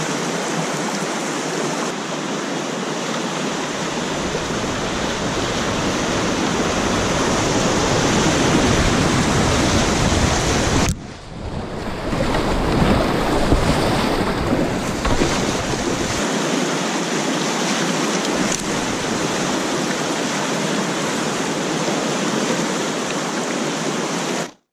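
Whitewater rapids rushing and churning right around a kayak, with wind buffeting the microphone in the middle stretch. The sound drops out briefly about eleven seconds in, comes back fuller, and stops abruptly at the end.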